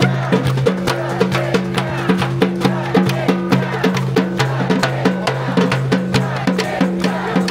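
Music with a quick, steady percussion beat of sharp clicks over a repeating two-note bass line.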